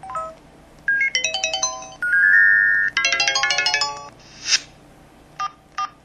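A series of MS280 mobile phone sound effects played through its small speaker. A short two-note chime is followed by a quick run of bright electronic beeps, a held synth chord and another fast beeping run. Then comes a brief hiss and two short clicks.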